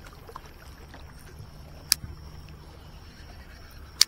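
Two sharp clicks about two seconds apart over a steady low hum and a steady high whine.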